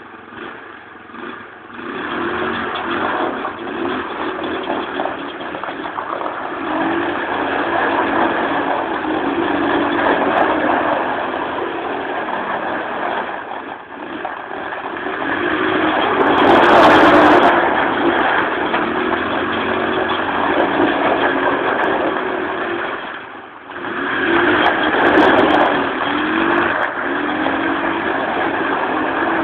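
Kinroad XT 150 ATV's 150 cc engine revving up and down over and over, under a steady rushing noise. The throttle drops off briefly about 14 seconds in and again about 23 seconds in. A loud hissing burst comes about 17 seconds in.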